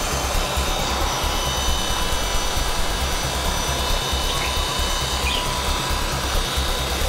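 WLtoys V912 4-channel RC helicopter hovering low: its electric motor gives a steady high whine over the whoosh of the spinning rotor blades, with an uneven low rumble beneath.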